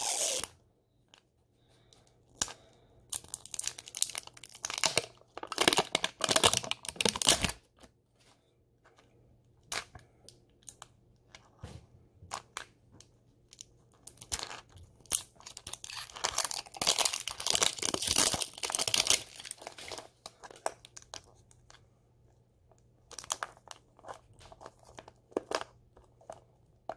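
Plastic wrapping being peeled and torn off a Mini Brands capsule ball, in irregular bursts of crinkling and tearing with quiet gaps and small clicks between.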